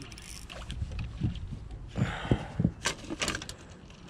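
A short splash of water, then several hollow knocks on an aluminium boat hull, as a hooked bream is netted at the side of the boat.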